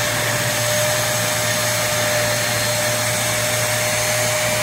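Hoover CleanSlate portable carpet and upholstery spot cleaner running steadily, its suction motor drawing water back up out of the carpet: an even rush of air with a steady whine over it.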